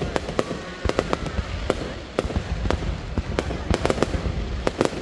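Fireworks going off in quick, irregular succession, several sharp bangs and cracks a second over a steady low rumble.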